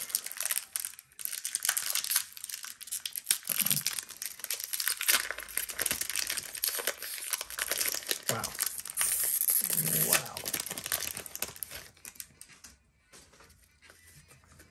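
A Pokémon Lost Origin booster pack's foil wrapper crinkling and tearing as it is opened by hand. The crinkling dies down about twelve seconds in, leaving only faint card handling.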